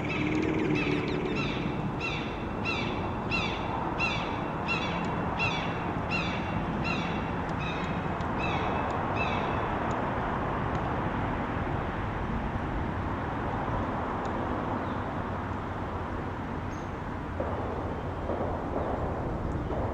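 A bird calling repeatedly, a steady series of short falling chirps about two a second, which stops about halfway through. Steady outdoor background rumble runs beneath it.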